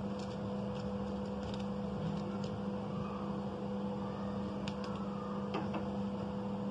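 Steady electrical or machine hum, with a few faint light clicks scattered through it.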